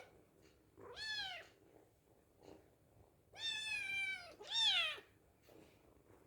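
Kitten meowing three times: a short meow about a second in, then a longer one, quickly followed by a short meow that falls in pitch.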